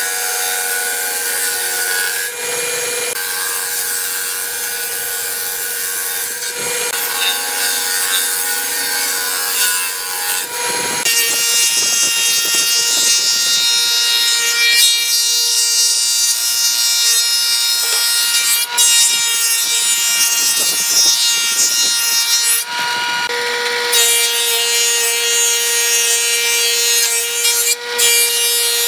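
Combination jointer-thickness planer planing wooden boards: the steady whine of the spinning cutterhead with the rough noise of wood being cut. It gets louder about eleven seconds in.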